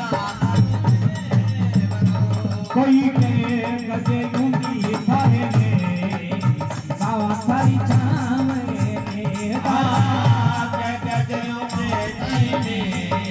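Live devotional bhajan music from a seated stage band: drums pulse under a constant rattling hand percussion, with a wavering melody line over them.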